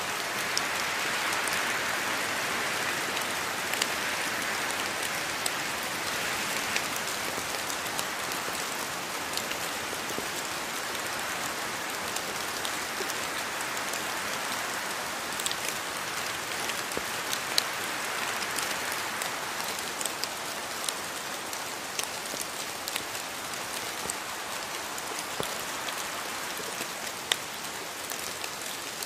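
Steady rainfall in a rainforest, an even hiss with scattered sharper drops striking close by.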